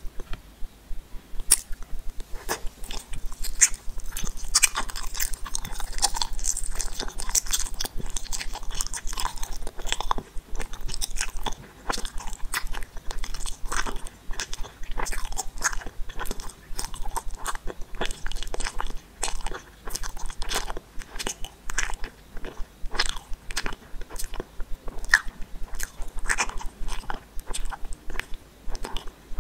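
Close-miked chewing of a purple gummy ball candy: wet, sticky chews with many sharp little clicks, several a second.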